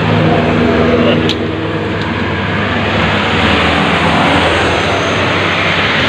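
Road traffic noise, with a vehicle engine humming steadily; a single sharp click about a second in.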